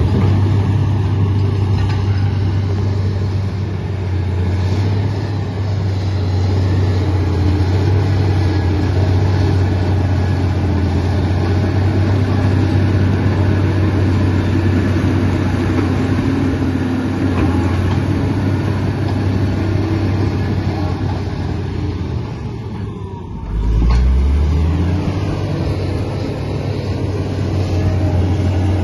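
Komatsu D85 bulldozer's diesel engine running steadily with a deep drone. About 22 seconds in it dips briefly, then comes back deeper and louder for a moment.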